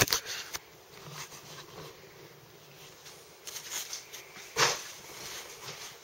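Irregular rustling, knocks and clicks from a handheld camera being carried and turned, with a louder thump about four and a half seconds in.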